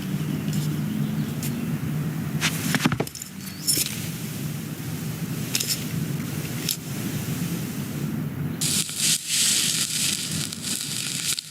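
Crackling and hissing noise with scattered sharp clicks over a low steady hum; a bright hiss swells up about eight and a half seconds in.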